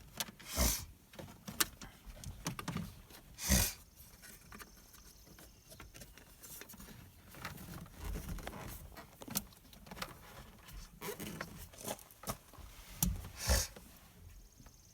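Irregular handling noise from work inside a truck cab: rustling and light clicks with a few louder short knocks, the loudest about three and a half seconds in and a pair near the end.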